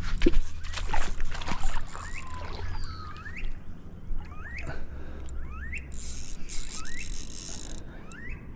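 Fishing reel being cranked while playing a hooked fish on light tackle, giving a short rising squeak about once a second, with clicks and handling knocks in the first two seconds.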